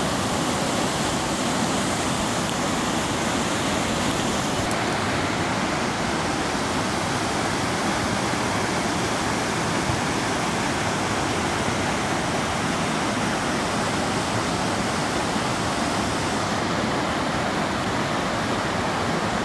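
White-water river rapids rushing over rocks: a steady, loud, unbroken rush of water.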